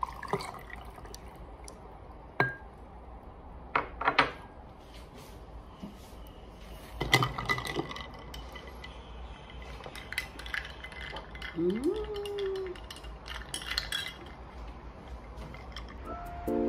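Drink being poured over ice in a glass mason jar, then stirred with a metal straw: scattered clinks of ice and metal against glass, with a cluster of clinks partway through. Music starts just before the end.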